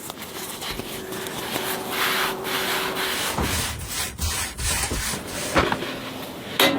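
Pizza dough being worked by hand on a board: irregular rubbing and scraping strokes.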